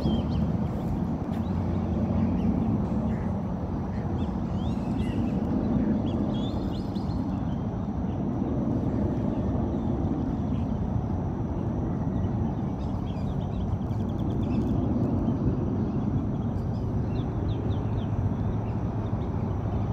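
Birds calling from a roost tree by the water: short high chirps and squawks scattered throughout, over a steady low rumble.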